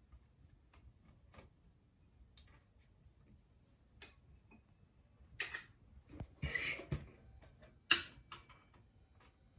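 Light ticks, then several sharp clacks and a short scraping rattle of small metal parts: a hand screwdriver taking out the two small Phillips screws that hold a car navigation unit's LCD screen onto its track.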